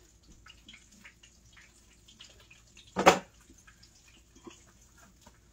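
Faint, sporadic crackling of chicken wings frying in hot oil, with one brief loud knock about three seconds in.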